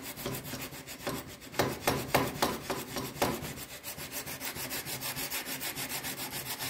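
A 400-grit CBN (cubic boron nitride) plate rubbed dry by hand back and forth along a steel knife blade in quick, even strokes, several a second, hand-finishing the blade to remove machine-grinding marks. The strokes get louder between about one and three seconds in.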